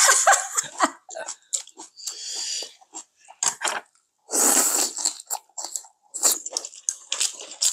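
People eating: crunchy bites and chewing of lettuce wraps and beef bulgogi, many short crisp crunches and mouth smacks in quick succession, with two longer crunching stretches about two seconds and four and a half seconds in.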